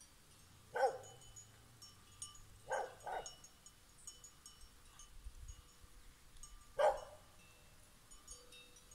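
A dog barking: a single bark about a second in, two quick barks near three seconds, and one more near seven seconds. Faint high tinkling sounds in the background.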